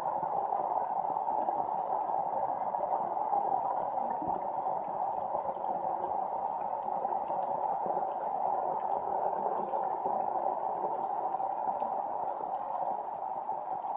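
Steady rain falling on flooded rice paddies, an even splashing with faint scattered drips.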